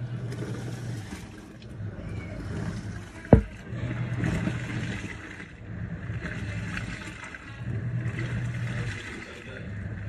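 Black+Decker 0.9 cu ft portable washing machine agitating a wash load: its motor hums in pulses of a second or two as the impeller turns one way and then the other, with water sloshing. There is a single sharp knock about a third of the way in.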